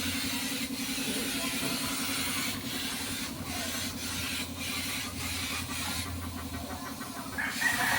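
A steady motor hum with a hiss over it that stops and starts every second or so.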